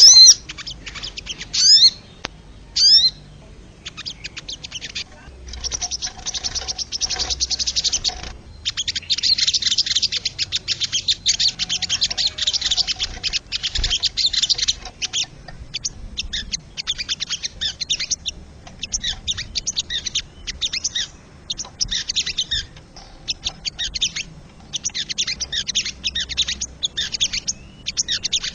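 Sogon (crested jay) calling: bursts of rapid, high rattling chatter, with a few loud, short rising whistles in the first three seconds.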